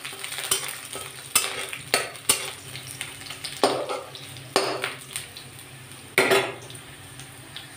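Chopped onions sizzling in hot oil in a metal kadai as a spatula stirs them, scraping and knocking against the pan about seven times at irregular intervals.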